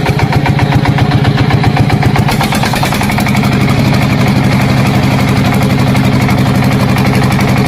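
An engine running steadily with fast, even pulses. It settles to a smoother, constant speed about three seconds in.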